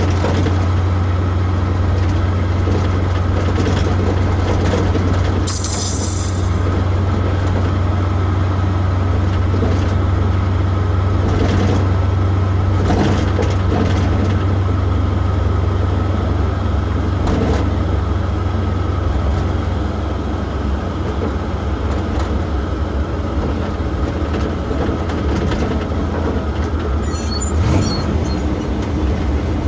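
Truck engine and road noise heard inside the cab while driving, a steady low drone with a few light knocks and a brief hiss about six seconds in.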